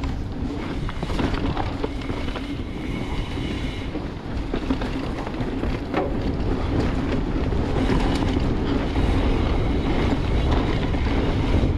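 Wind rushing over the microphone while a full-suspension mountain bike rides fast down a dirt trail, its tyres rolling on the ground, with scattered clicks and rattles as it hits bumps.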